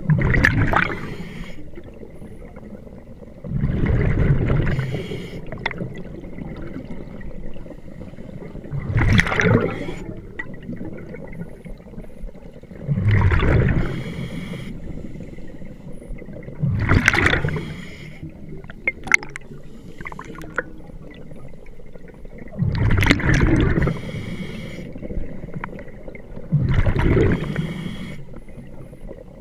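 Scuba diver breathing through a regulator underwater: seven bursts of gurgling exhaled bubbles a few seconds apart, with a quieter hiss of breath between them.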